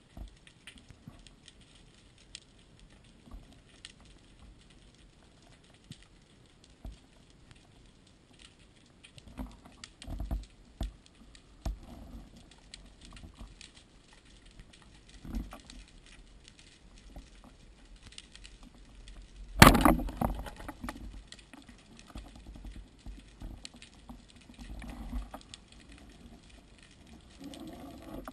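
Underwater sound picked up by a speargun-mounted camera: a faint steady crackle of scattered clicks, with a few dull knocks of the gun being handled. About two-thirds through comes a single loud, sharp crack that rings on briefly.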